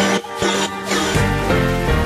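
Background music of held, pitched notes, without a heavy beat.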